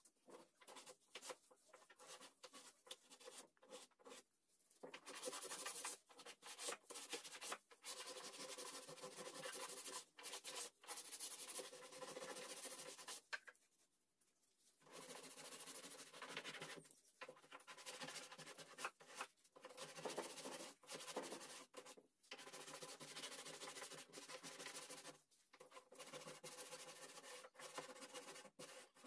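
A small pad being rubbed by hand over carved teak wood, applying polish in short scrubbing strokes. Faint rough rubbing that comes and goes, with a pause of about two seconds midway.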